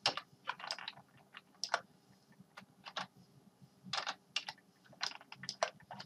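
Computer keyboard keys and mouse buttons clicked in short, irregular clusters.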